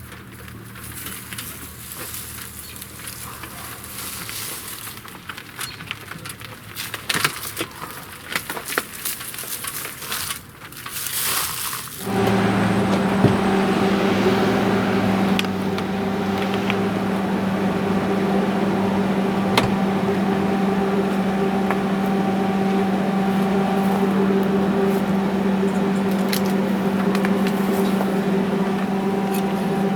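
Scattered clicks and rattles of gear being handled, then about twelve seconds in a MIG welder is switched on and runs with a steady electrical hum and cooling fan.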